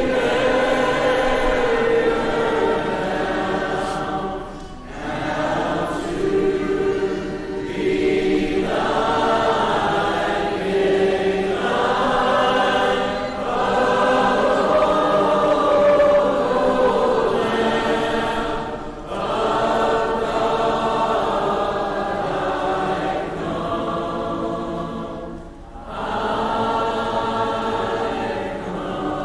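A church congregation singing a hymn a cappella in unison and parts, holding long notes, with short breaks between phrases.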